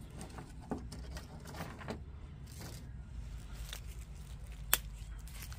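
Small dry twigs being handled, giving scattered light clicks and knocks, with one sharper click near the end, over a steady low rumble.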